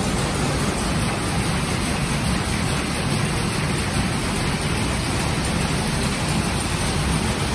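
Several jacquard power looms running together: a steady, dense mechanical noise from the looms and their overhead jacquard heads.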